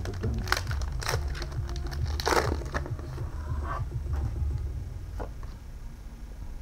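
Foil booster pack of trading cards being torn open and crinkled: sharp crackles and tearing, loudest about two seconds in, then a few softer clicks as the cards are handled. A low steady hum runs underneath.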